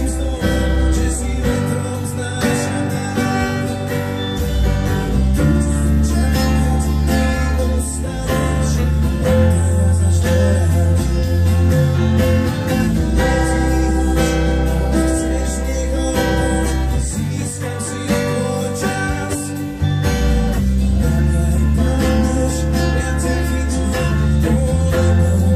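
Steel-string acoustic guitar strummed in a steady rhythm through an instrumental passage of a song, over deep bass notes that change every few seconds.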